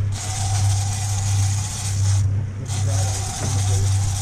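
Boat's outboard motors running at low speed, a steady low hum, with wind and water noise over it.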